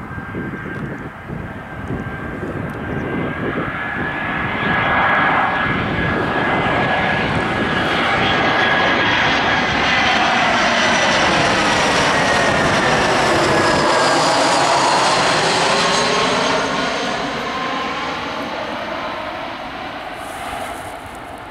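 Airbus A319's CFM56 turbofan engines at approach power as the jet passes low overhead on final approach. A whine and rush of engine noise builds to its loudest midway, while the engine's fan tone slides slowly down in pitch as it passes, then fades as the aircraft moves away.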